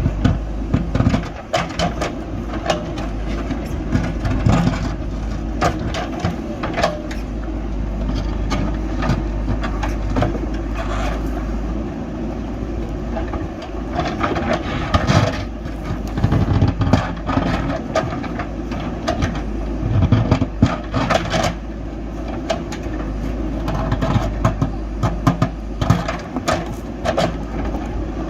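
JCB backhoe loader's diesel engine running steadily under load, with frequent irregular knocks and clanks from the digging work.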